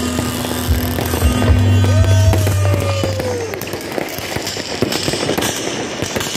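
New Year's fireworks going off overhead in a rapid string of cracks and pops, over a steady low drone of music. About two seconds in, a tone slides downward for about a second and a half.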